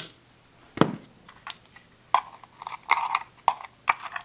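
Clicks and knocks of a UV curing lamp being handled and set in place for curing the screen protector's adhesive: about eight sharp, unevenly spaced clicks, several with a brief ringing tone.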